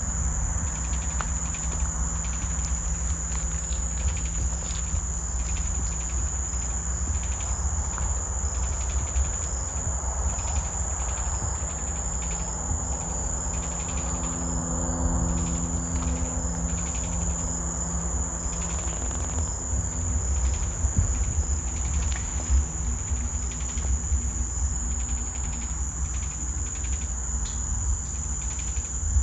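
Insect chorus: a steady high-pitched trill with rhythmic pulsed chirping beneath it, over a constant low rumble.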